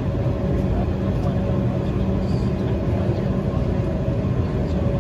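Steady cabin noise inside an Embraer E190 jet airliner: a low, even hum with two constant tones, unchanging throughout.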